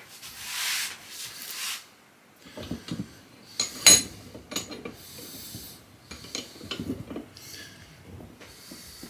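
A steel rifle bolt being set into a bench vise and clamped: a rustling hiss for the first two seconds, then light metal knocks and clinks, the sharpest a ringing clink about four seconds in, and soft scrapes as the vise handle is turned to tighten the jaws.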